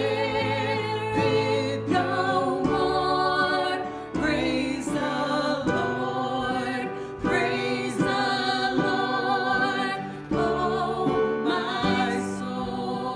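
Music: a sung gospel worship song with instrumental accompaniment, its voice holding long notes with vibrato.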